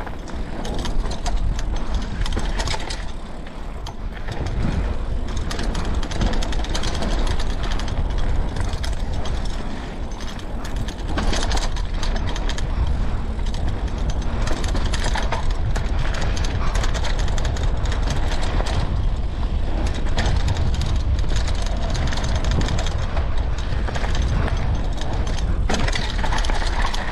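Mountain bike riding a rough woodland trail: tyres crunching and rattling over the ground, the bike's chain and frame clattering, and the freehub ratchet ticking as it coasts, over a steady low rumble of wind on the microphone.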